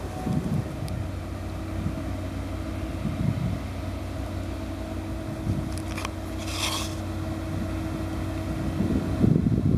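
Distant heavy marine-construction engine running steadily at a low drone, with wind rumbling on the microphone, strongest near the end. A short hiss sounds about six and a half seconds in.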